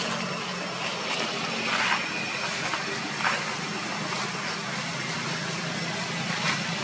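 Steady outdoor background hiss with a low, engine-like hum, broken by a few short crackles.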